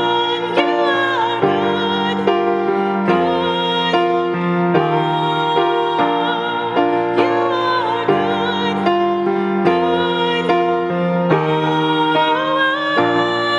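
A woman singing a worship song, accompanying herself on a grand piano: held sung notes over piano chords struck at a steady pace.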